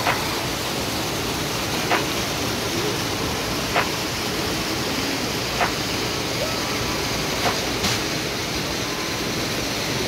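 Artificial indoor waterfall splashing into a pool, a steady rush of falling water, with a light click about every two seconds.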